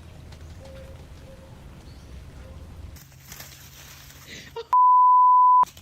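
A loud, steady censor bleep of just under a second near the end, a single pure tone with all other sound cut out around it. Before it, faint pigeon cooing over a low rumble.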